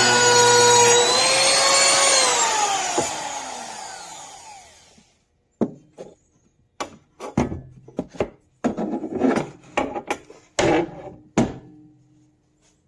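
AVID Power 6.5 A compact wood router's motor running with a steady whine; about a second in the pitch rises a little, then it is switched off and winds down, fading out over about three seconds. Then a series of irregular knocks and clatters of wood and tool being handled.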